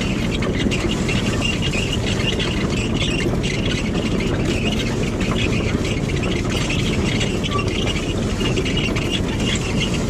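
Hagedorn Wisent potato harvester running: its rod-chain webs and sorting table clatter steadily as potatoes and clods tumble over them, with a steady high-pitched squeal throughout.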